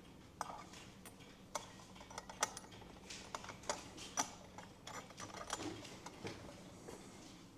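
Faint, irregular light clicks and taps of small brass clock-movement parts being handled and fitted together, with no steady ticking rhythm.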